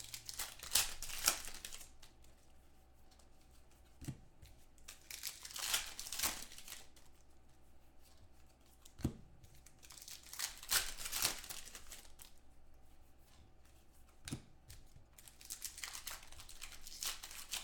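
Foil trading-card pack wrappers being torn open and crinkling as cards are handled, in several short swishes, with a soft knock about every five seconds.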